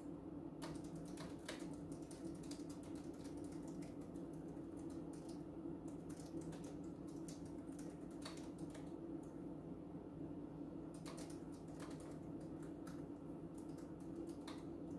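Typing on a computer keyboard: runs of quick key clicks with a pause of a second or two past the middle, over a steady low hum.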